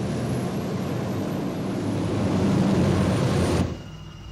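Sci-fi war machine engine sound effect: a steady rushing hiss with a low hum underneath and a faint high whine, cutting off suddenly near the end.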